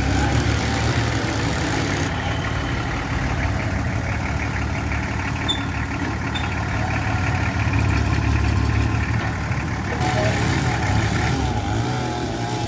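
Diesel engine of a Mitsubishi BD2F bulldozer running steadily.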